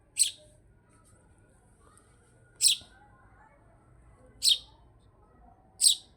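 Sparrow giving four short, high chirps, one every couple of seconds.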